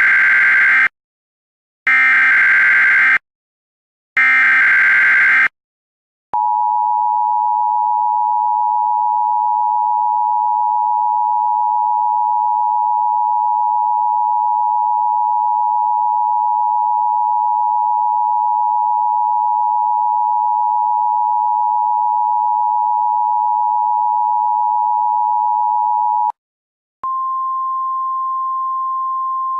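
Emergency Alert System tones from a simulated EAS test. First come three bursts of about a second each of buzzy digital header data (the SAME header), a second apart. Then the two-tone EAS attention signal holds steady for about twenty seconds. After a brief break, a single slightly higher steady tone starts and runs on.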